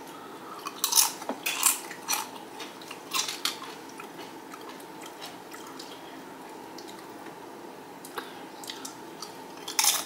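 Xxtra Flamin Hot Doritos tortilla chips crunching as they are bitten and chewed: a quick run of sharp crunches in the first few seconds, a lull, then more near the end.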